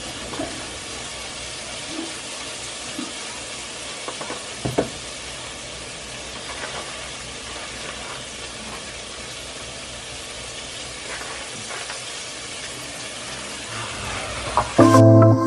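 Food sizzling steadily on the stove, with a few light clicks of a spoon against a ceramic bowl in the first few seconds. Music comes in near the end.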